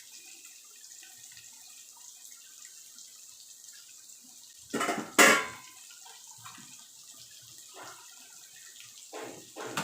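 Faint running and dripping water in a kitchen, with two sharp loud knocks in quick succession about five seconds in.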